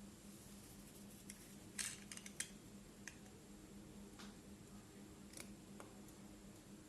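A few faint, sharp clicks and taps from small phone parts being handled, most likely the display's connector being fitted onto the board, with a cluster about two seconds in. A faint steady hum runs underneath.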